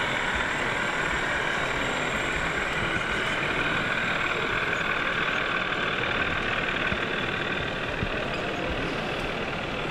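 Steady background noise of a busy exhibition hall, an even hubbub with no distinct events.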